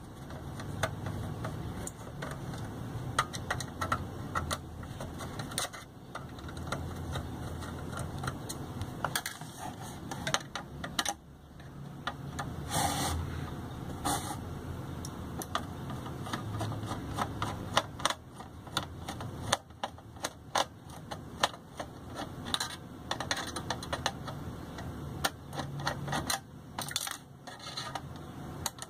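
Irregular small clicks, taps and scrapes of a screwdriver and fingers working on the sheet-metal chassis of a Pioneer DEH-1280MP car CD receiver being taken apart.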